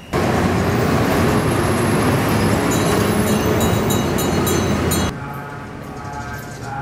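Loud road-traffic noise with a large city bus driving past close by, and brief high squeals near its end; it cuts off abruptly about five seconds in to a much quieter background.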